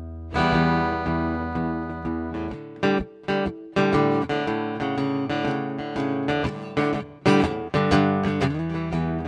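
Acoustic guitar playing a song's instrumental intro. A chord rings over a held low note, then a steady rhythmic strumming pattern sets in from about two and a half seconds in.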